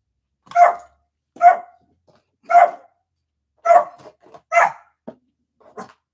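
A dog barking: about five loud single barks roughly a second apart, then a few fainter barks near the end.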